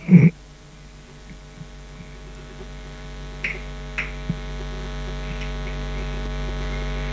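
Steady electrical mains hum with many overtones, growing gradually louder, with two faint clicks about halfway through.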